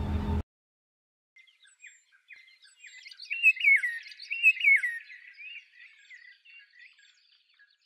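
A low vehicle rumble cuts off abruptly about half a second in. After a second of silence, birds start chirping: many quick, short high notes, busiest around the middle, then thinning out.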